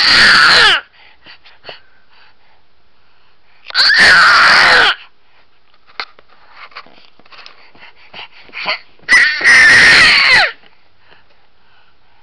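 A baby screaming with excitement: three loud, high-pitched screams of about a second each, the pitch dropping away at the end of each, with small coos and breathy sounds in between.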